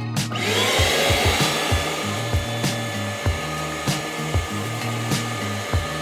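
Hoover CleanSlate portable carpet and upholstery extractor switched on: its motor starts just after the opening, spins up with a rising whine, then runs steadily.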